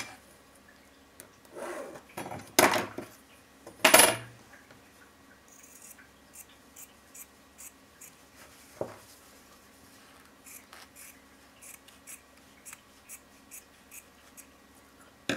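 Two loud clatters of a steel ruler being put down on the cutting mat in the first few seconds. Then scissors snip through cotton fabric in a steady run of small cuts, about two a second.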